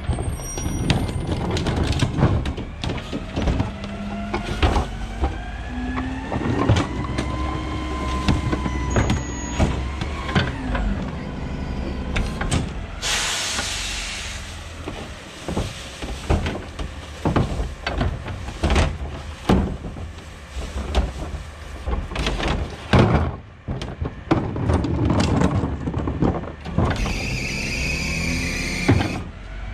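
Rear-loading garbage truck at work: the diesel engine rumbles and rises and falls in pitch with a whine as the packer runs, while plastic carts knock and bang against the hopper. A short, sharp hiss of air comes about 13 seconds in, and another hissing, whining stretch near the end.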